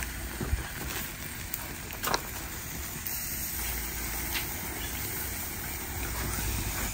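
Steady hiss of a gas burner flame and charred tomatoes sizzling on a wire grill grate, with a few sharp clicks of metal tongs against the grate.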